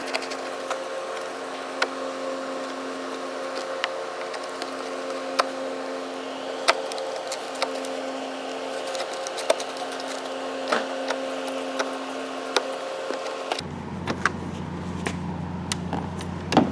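Hand tools working the Phillips screws and door panel of a pickup's interior door: scattered sharp clicks and scrapes over a steady hum, which cuts off abruptly near the end.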